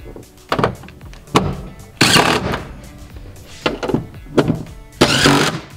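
Cordless impact wrench running 14 mm bolts down into the frame's mounting points: two main rattling bursts of about half a second each, about two and five seconds in, with shorter bursts in between. Background music plays throughout.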